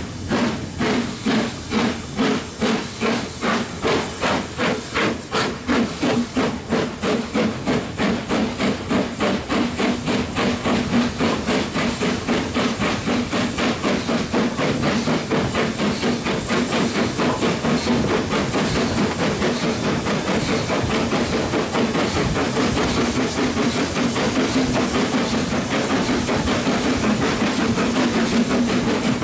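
Steam locomotive pulling away, its exhaust beating from the chimney about one and a half times a second at first, then quickening as it gathers speed until the beats run together, over a steady hiss of steam.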